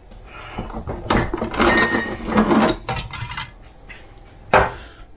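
Jars and bottles clinking and knocking together as a hand rummages through a crowded kitchen cupboard for the salt, followed by a single sharp knock about four and a half seconds in.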